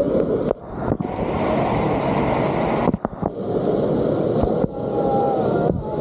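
Waterfall crashing down right in front of the microphone: a dense, steady rush of falling and splashing water, dipping briefly in level a few times.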